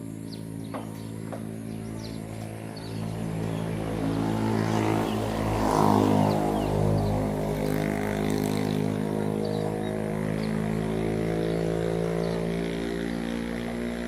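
A low, steady engine hum passes by, growing louder to a peak about six seconds in and then slowly fading. Birds chirp faintly near the start.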